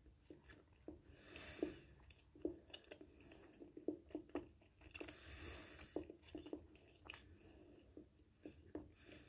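Close-up chewing of toasted bread topped with poultry sausage: a run of short, wet, crunchy clicks from the mouth, with two longer soft hisses about a second and a half and five and a half seconds in.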